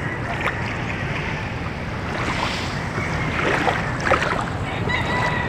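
Small waves lapping and washing on a pebbly shore of a calm sea, with wind rumbling on the microphone.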